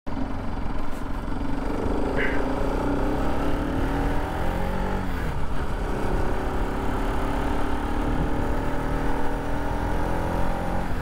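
Bajaj Pulsar RS200's single-cylinder engine running under way, its note dropping and picking up again around the middle, with wind rush on the helmet-mounted camera.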